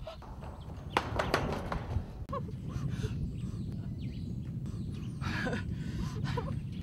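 Wind rumbling on the microphone, with footsteps and a few sharp knocks on a steel grating walkway.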